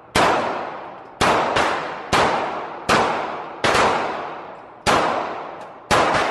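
Handgun shots at an indoor range, about eight in irregular succession, roughly one a second. Each is a sharp crack with a long echoing decay off the range walls.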